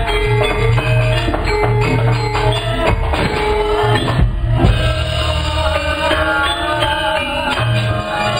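Javanese gamelan playing: bronze kettle gongs, metallophones and drums in an ensemble piece of struck, ringing notes, with one louder hit about four seconds in.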